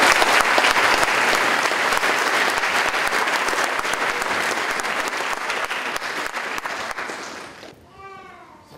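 Audience in a hall applauding, a dense clapping that dies away near the end.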